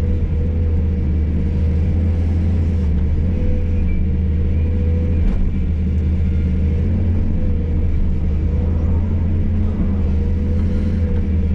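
Hydraulic excavator's diesel engine running steadily under work, a low drone with a steady higher tone over it. There is one faint knock about five seconds in.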